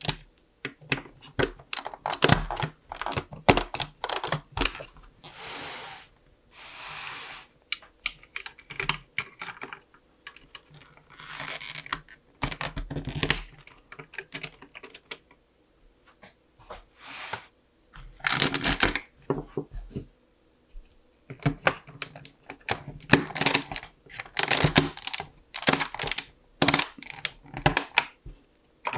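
LEGO bricks and Technic parts being pressed and snapped together by hand: a quick, irregular run of small plastic clicks and snaps, with a couple of longer scraping stretches of handling noise a few seconds in.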